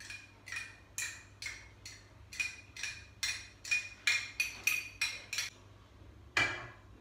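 Tomato being scraped over a small metal hand grater in quick strokes, about two to three a second, each with a slight metallic ring. The strokes pause briefly near the end, then one more follows.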